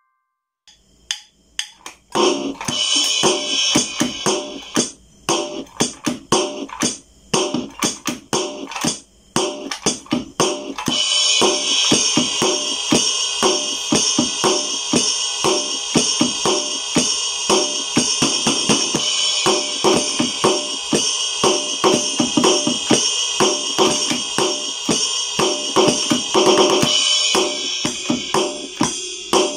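Portable electronic drum pad being played, its drum-kit sounds heard through its speaker. There are scattered drum hits for about the first ten seconds, then a continuous beat with a steady wash of cymbal from about eleven seconds in.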